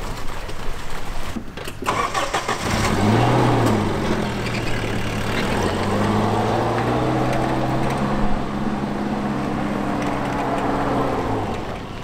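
Small pickup truck's engine starting about three seconds in with a brief rev, then running steadily as the truck pulls away, fading near the end.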